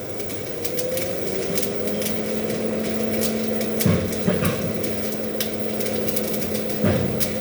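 Stick (MMA) welding arc crackling irregularly over a steady low hum, with a few sharp knocks about four seconds in and again near the end.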